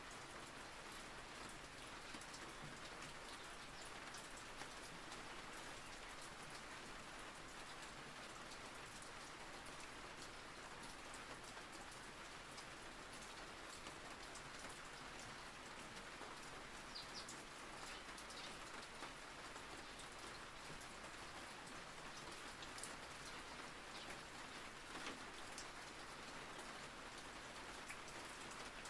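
Steady rain falling on a surface: an even, quiet hiss sprinkled with the small ticks of individual drops.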